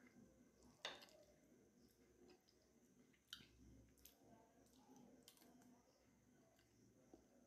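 Near silence, with a few faint clicks of a spoon and glass bowl being handled, the sharpest about a second in.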